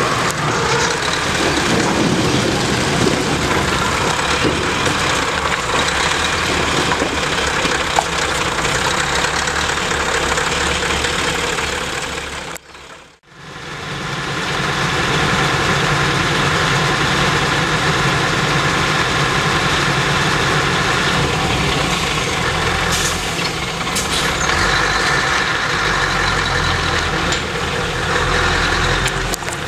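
Scania 144G 460's V8 diesel running steadily at a raised idle while the hooklift holds its tipped container of firewood. The sound drops out briefly just before halfway, then the same V8 runs on as the truck, its container lowered, slowly pulls away.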